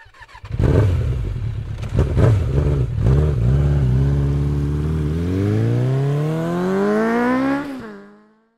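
Aprilia RSV R's 1000cc V-twin, through an Akrapovic exhaust, catching about half a second in and running unevenly with a quick blip of the throttle. It then settles to a steady note before a long slow rev rising for about two and a half seconds, drops back and fades out.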